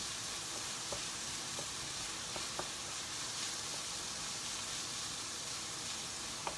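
Ground-meat taco filling sizzling steadily in a frying pan, with a few light clicks from the spatula as it is stirred.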